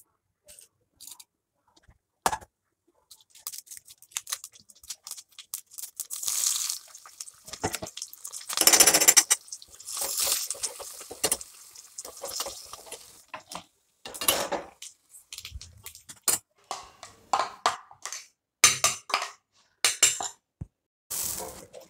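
Frying in a steel kadai: oil sizzling around the ingredients, with a spatula scraping and knocking against the pan in irregular bursts. The hissing is strongest in the middle of the stretch.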